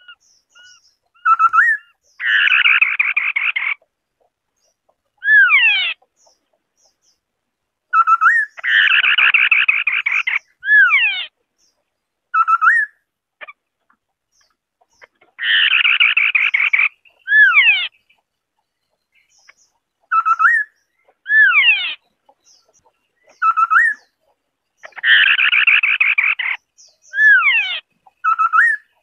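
White-browed scimitar-babbler song: clear, short rising whistled notes and quick sweeping notes, alternating with a harsh, grating chatter about a second and a half long. The phrase comes about four times.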